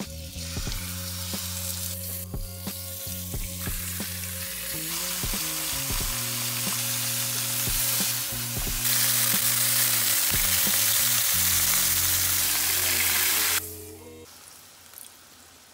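Pieces of raw rabbit frying in hot oil in a pan, sizzling steadily, with soft knocks as pieces are set down in the pan. The sizzle grows louder as the pan fills, then drops away suddenly near the end.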